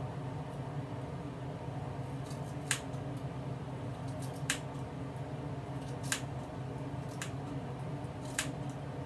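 Scissors snipping through the ends of a wig's hair in a blunt cut: about five sharp snips, a second or two apart, over a steady low hum.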